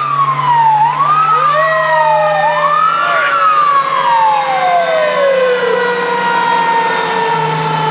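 Fire engine's mechanical siren wound up three times, its wail rising in pitch and sagging back between pushes, then coasting down in one long falling wail. The truck's engine drones steadily underneath.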